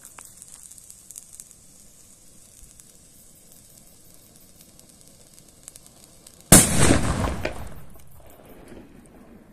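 Funke Tuono Gold 20 firecracker: its fuse hissing steadily, then one loud bang about six and a half seconds in that echoes away over about two seconds.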